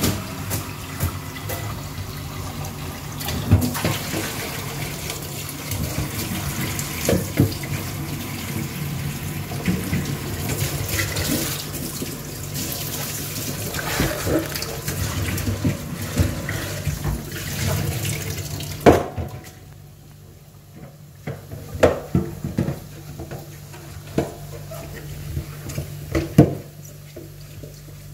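Running water, a steady rushing hiss over a low steady hum; the water stops about two-thirds of the way through, leaving the hum and scattered knocks of handling.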